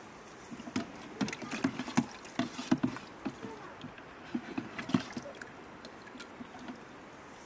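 Plastic cup dipped into a plastic bucket of water to refill it: a run of irregular knocks and sloshes for a few seconds, then only faint background hiss.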